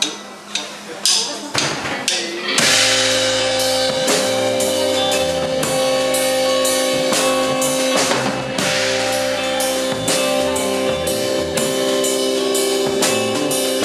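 Live psychedelic rock band starting a song: a few separate drum hits about every half second, then about two and a half seconds in the full band comes in with drums, electric guitars and bass, a sustained droning tone over a steady beat.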